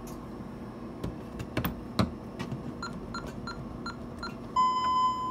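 ADT alarm keypad being keyed: a few clicks, then a run of short key-press beeps, about three a second, as the code is entered to arm the system in Stay with Instant. Near the end comes one longer steady beep from the keypad.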